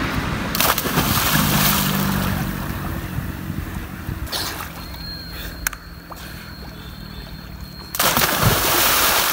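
Two head-first dives into a pond. The first diver hits the water with a splash about half a second in and there is sloshing as he swims off. A second, louder splash comes about eight seconds in as another diver goes in.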